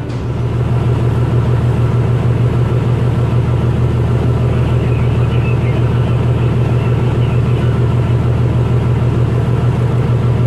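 Fishing boat's engine running steadily under way: a loud, constant low drone with a hum, over a wash of wind and water noise.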